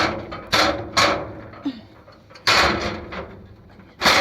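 Sheet-metal vending machine tray being handled and fitted into its rails: a series of sharp clunks and knocks, four or five in about three seconds, the last one longer-ringing.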